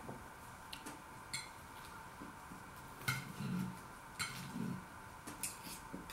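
Metal knife and fork clinking against a ceramic plate while cutting a fishcake: several sharp, ringing clinks a second or so apart.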